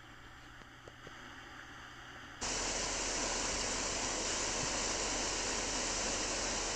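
Faint outdoor background with a few small clicks, then, after an abrupt cut about two and a half seconds in, a loud steady rush of running river water.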